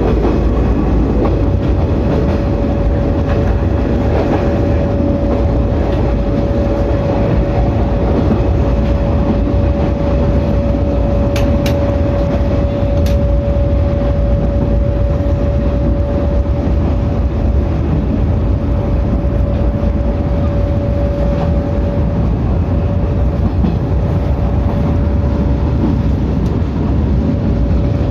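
Electric train running at a steady speed: a loud continuous rumble with a steady whine held for most of the stretch, easing after about 22 seconds, and a few sharp clicks about halfway through.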